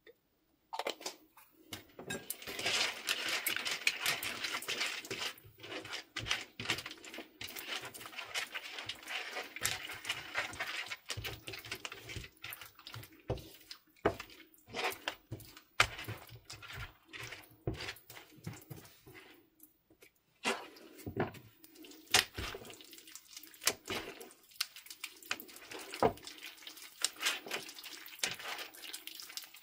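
Bead-filled 'crunchy' slime being stirred in a plate with a silicone spatula, then stretched and kneaded by hand, as glycerin is worked in. It makes wet, sticky squelching with many small clicks and pops.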